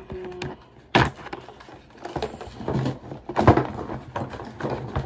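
Small cosmetic containers and a storage bin being handled: a sharp knock about a second in, then a run of clicking and clattering as the jars are moved.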